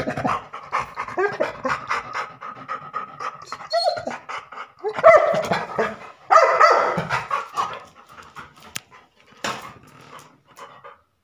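Labrador retriever panting fast, mixed with whines and short barks; a falling whine at the start, with louder vocal outbursts about five and six and a half seconds in.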